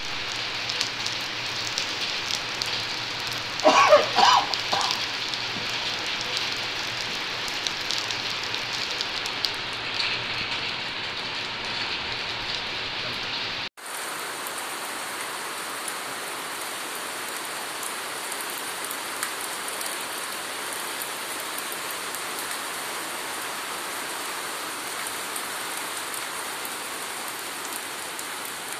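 Steady rain falling on wet pavement and puddles, with one brief loud pitched sound about four seconds in. The rain's sound changes abruptly about halfway through.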